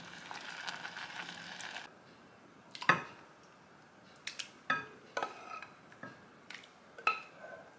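A wooden spoon stirring thick mushroom and soybean soup in a pot for about two seconds. Then the spoon scrapes the soup out of the tipped pot into a bowl, with several sharp clinks of spoon and pot against the dishes, some briefly ringing, the loudest about three seconds in.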